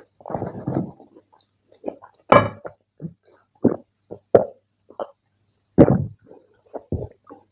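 Close-miked mouth sounds of a man eating rice and kidney-bean curry: wet chewing and lip smacks in separate bursts, with a few gulps as he drinks from a cup about halfway through.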